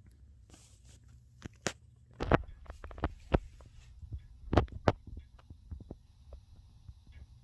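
Hands working with small parts: a run of sharp knocks and taps, loudest about two seconds in and again about four and a half seconds in, over a steady low hum.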